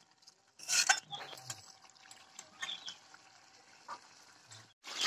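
Long metal spatula stirring a boiling prawn and potato curry in a metal wok: a few scrapes and knocks against the pan with liquid sloshing, the loudest stroke about a second in.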